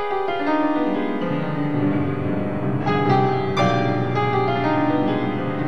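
Background music led by piano, sustained chords with new notes struck about three seconds in and again just after.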